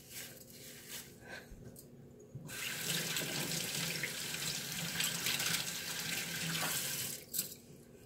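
Kitchen tap running steadily for about four and a half seconds, then shut off, with a few light rustles and clicks before it starts.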